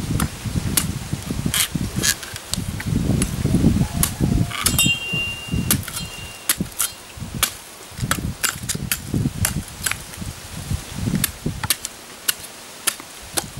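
Machete chopping a green coconut: sharp blade strikes into the husk, irregular, about one to two a second, over a low rumble.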